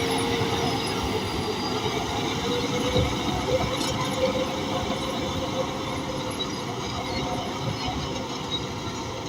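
Crawler bulldozer working: diesel engine running under the metallic squeal and clank of its steel tracks, with a few knocks and slowly fading away near the end.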